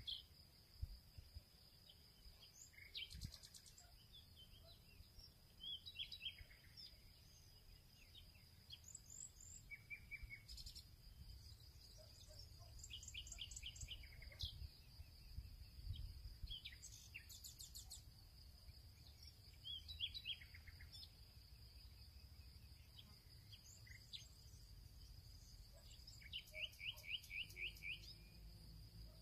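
Faint bird calls: every few seconds a burst of short, quickly repeated high chirps, the longest run near the end. Beneath them runs a steady high-pitched whine.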